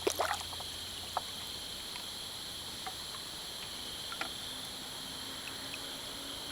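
Steady high-pitched insect chorus, with a few faint knocks.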